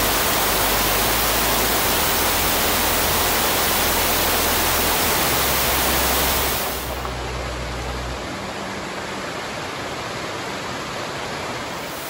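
Steady rushing of a canyon creek and waterfall running high with snowmelt. The sound drops to a softer hiss about seven seconds in.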